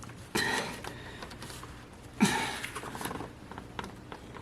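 Alternator mounting bolt being turned a further angle with a large ratchet under high torque: two loud strained creaks, one about a third of a second in and a sharper one a little past two seconds.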